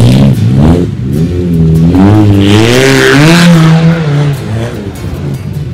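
An off-road vehicle's engine revving hard, its pitch climbing and falling several times, then dropping back to a quieter, steadier note near the end.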